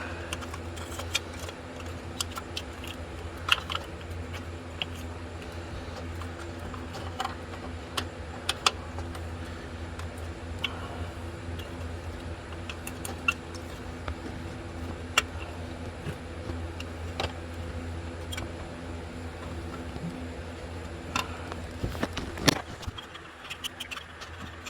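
Scattered small clicks and metallic taps from hand tools and parts being handled under the hood, with a steady low hum underneath that drops away near the end.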